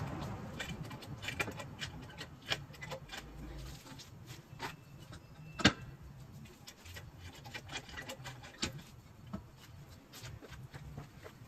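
Scattered clicks and light knocks of tools and suspension parts being handled while fitting rear coil spacers, with one sharper knock about five and a half seconds in.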